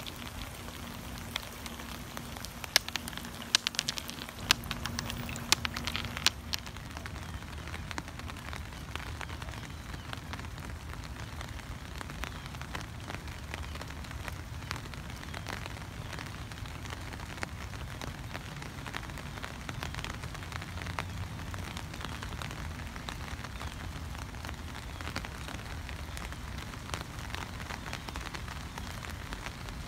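Steady rain falling on concrete and leafy shrubs. Sharp, close drop hits stand out over the even hiss in the first six seconds or so.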